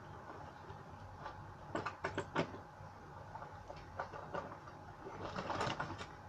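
A quick run of sharp clicks and knocks about two seconds in, a couple of lighter ticks later, and a short scraping rustle near the end, like small objects being handled.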